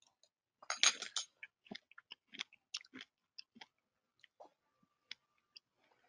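A string of faint, irregular small clicks and crackles, bunched most tightly about a second in, with a thin faint tone near the end.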